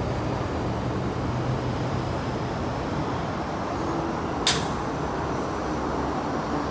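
MTR East Rail line electric train pulling away from the platform, its steady running noise heard as it leaves, with one short sharp click about four and a half seconds in.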